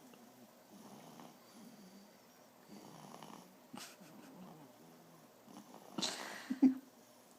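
Soft snoring of a sleeping ten-week-old: faint snores every second or two, with one louder burst about six seconds in.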